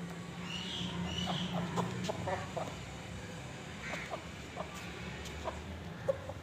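Aseel chickens clucking: short, separate clucks scattered throughout, with a couple of higher calls in the first second and a half.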